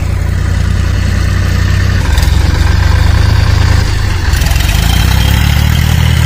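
Sonalika tractor's diesel engine running steadily under load as it pulls a rotavator through dry soil, growing a little louder about two seconds in.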